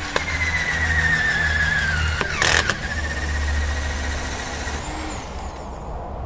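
Electric drill running as it bores a drain hole through the sidewall of a rubber tyre: its whine falls in pitch over the first couple of seconds, then holds steady and stops about five seconds in. A short harsh burst about two and a half seconds in.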